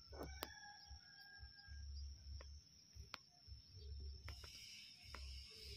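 Faint outdoor ambience: a steady high-pitched insect drone, with an intermittent low rumble on the microphone and a few faint clicks. A wider high hiss joins about four seconds in.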